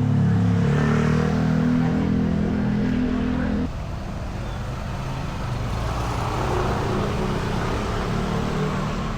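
A motor vehicle's engine running close by, a steady low hum that cuts off abruptly about three and a half seconds in, leaving a quieter, even hiss of street traffic.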